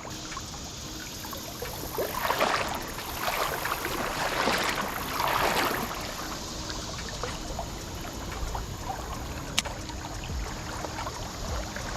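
Creek water running steadily, with two louder rushing swells of water noise about two and four seconds in, and a single sharp click near the end.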